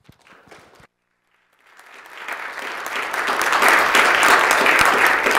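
Applause from the assembly members. It starts about a second and a half in and grows steadily louder.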